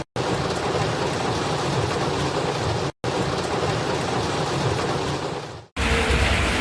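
Heavy rain falling and splashing on surfaces, a steady hiss in several cut-together clips. The sound drops out briefly twice, and near the end a new clip brings a lower, steadier wash of rain or water noise.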